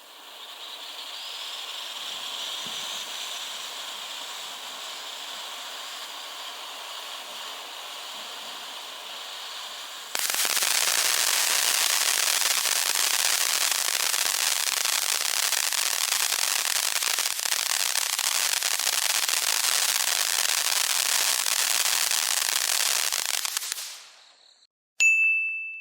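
Firework fountain spraying with a steady hiss that switches abruptly about ten seconds in to a louder, dense crackling hiss, which dies away shortly before the end. Then a single bright ding rings out.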